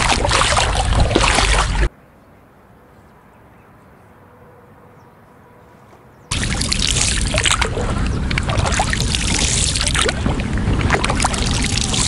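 Water splashing and sloshing around an inflatable rowing boat, loud and noisy. It cuts off suddenly about two seconds in to a quiet stretch of faint noise, then starts again just as suddenly about six seconds in.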